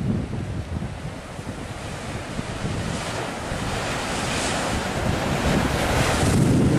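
Ocean waves crashing and washing in, under strong wind buffeting the microphone with a low rumble. A surge of hissing surf builds from about three seconds in and grows louder toward the end.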